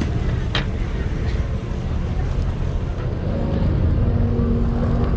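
Steady low rumble at a street-food stall, with faint voices behind it and a sharp tap about half a second in, as chopsticks work egg in a rectangular tamagoyaki pan.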